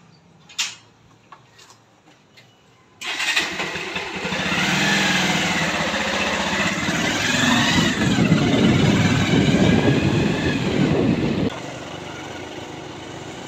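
Motorbike engine starting about three seconds in, then running as the bike rides off, with heavy wind buffeting on the microphone that eases off near the end.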